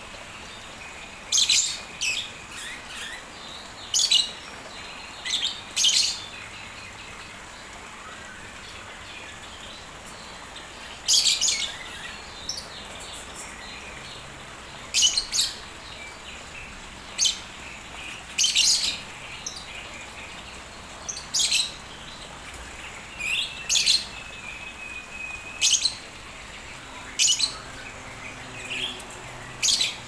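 Birds chirping: about a dozen short, sharp, high calls at irregular intervals, some in quick pairs, with one or two slightly longer whistled notes.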